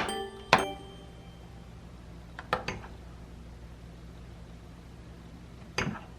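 Microwave oven running with a steady low hum after a click about half a second in, with a few light knocks of dishware, twice around two and a half seconds and once near the end.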